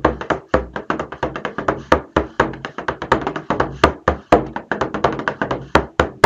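Bodhrán played fast with a tipper: a steady run of drum strikes, several a second, with some heavier accented beats, closing on one loud final strike near the end that rings on.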